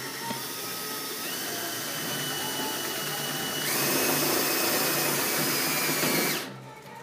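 Cordless drill driving a self-drilling screw into an aluminium shower-enclosure profile. The motor whine steps up in pitch about a second in, gets louder and harsher nearly four seconds in, and stops suddenly about half a second before the end.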